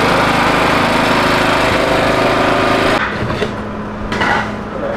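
Portable petrol generator's small engine running steadily and loudly. It cuts off abruptly about three seconds in, leaving a quieter low, steady hum.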